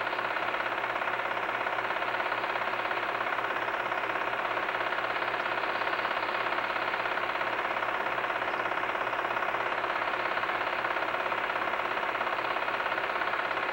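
Home-movie film projector running: a steady mechanical whir with a fast, even flutter and no change in pitch.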